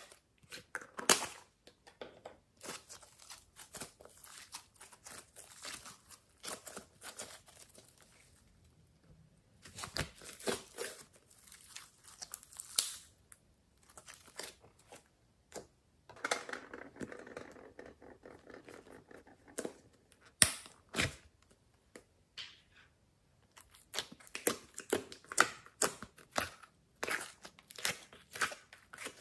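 Slime being scraped out of thin plastic tubs and squeezed and folded by hand: irregular sticky crackles and sharp pops, with a denser run of crackling about two-thirds of the way through. The thin plastic containers crinkle and click as they are handled.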